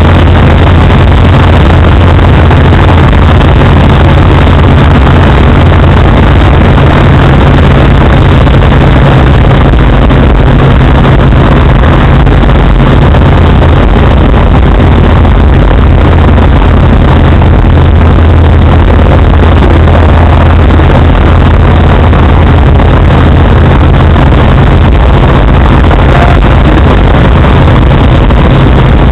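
TeamEurostar microlight's engine and propeller running steadily at cruise power in flight, heard from inside the cockpit as a loud, even drone mixed with rushing air.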